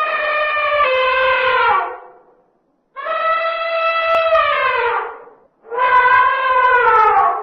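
Three long, loud horn-like animal calls, each about two seconds, every one dropping in pitch as it ends.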